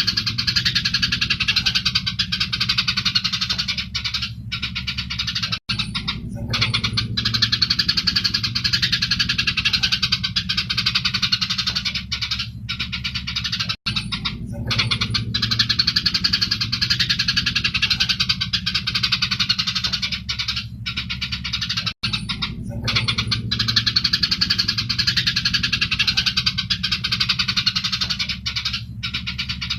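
Eurasian tree sparrows chattering in a dense, continuous run of excited chirps, the agitated calling of sparrows squabbling. It is a segment of about eight seconds looped, with a brief gap at each repeat and a low hum underneath.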